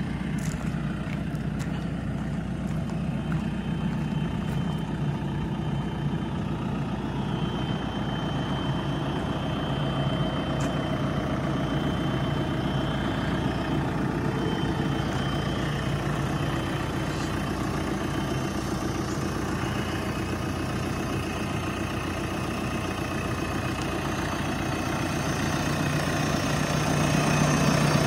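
Diesel engine of a JCB 4CX backhoe loader idling steadily, growing louder near the end.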